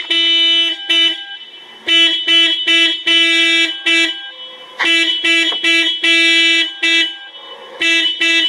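Car alarm sounding through the car's horn: one steady-pitched honk repeated in a rhythm of short blasts and longer held ones, in groups broken by pauses of about half a second to a second.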